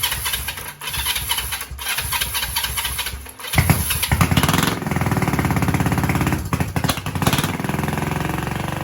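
Honda CL350 parallel-twin engine cranking roughly for a few seconds, then catching about three and a half seconds in and running steadily, with a brief blip of the throttle near the end.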